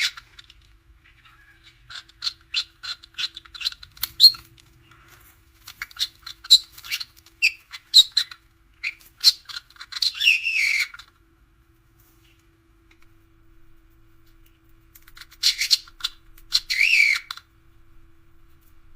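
Nestling birds giving rapid, high-pitched begging calls in two bouts with a lull of a few seconds between them, the cries of chicks calling to be fed.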